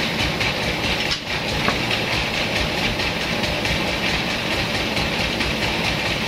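Vertical band sawmill running, with a steady, loud clatter and rattle from the machine as a large log is fed against the blade.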